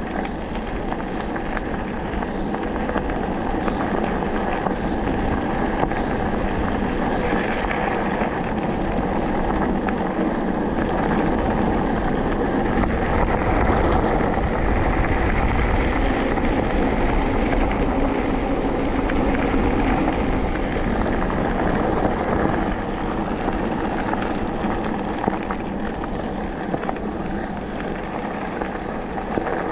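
Electric mountain bike riding along a gravel and dirt forest track: steady rumble and crunch of the tyres on the loose surface, with wind noise on the microphone, a little louder midway.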